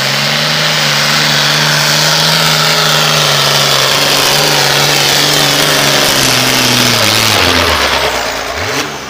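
Super Farm class pulling tractor's diesel engine running wide open under load, steady and loud. About seven seconds in its revs drop, with a brief rev just before the sound falls away at the end.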